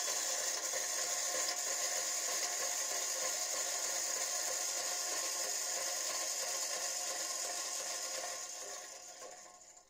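The paddle-wheel drive of a model paddle steamer running, turning the paddle wheels: a steady mechanical whir with several steady tones, fading out over the last couple of seconds.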